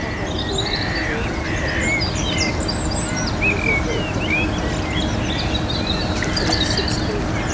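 A warbler singing from the reed bed: a fast, unbroken run of varied short chirps and whistles, over a steady low rumble.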